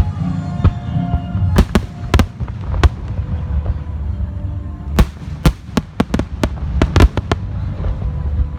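Fireworks shells bursting in sharp bangs, a few scattered early and then a rapid run of about ten in the second half, over loud background music.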